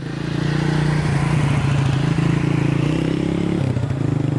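Motorcycle engines running, with a steady low hum whose pitch dips briefly about three and a half seconds in.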